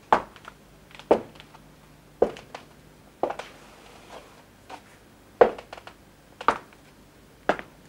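Slow footsteps on a hard floor, about one step a second, that stop briefly midway and then carry on, over a faint low hum.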